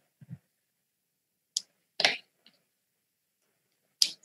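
A few sparse, short clicks and taps from handling plastic whiteboard markers and their caps: a sharp click about a second and a half in, another short one about two seconds in, and a last click near the end.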